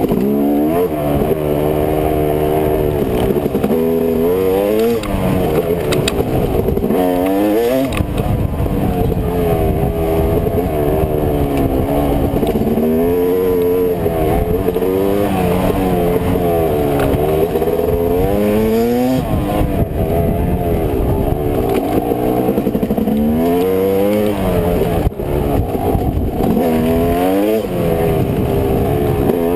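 2005 Yamaha YZ250 two-stroke dirt bike engine ridden along a trail, its pitch climbing and dropping again and again as the throttle is worked and gears change.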